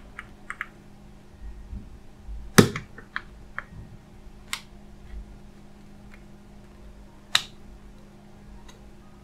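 Sharp clicks and snaps of a keypad mobile phone's plastic housing being pried apart with an opener tool: a loud snap about two and a half seconds in, two more near four and a half and seven seconds, with fainter ticks between.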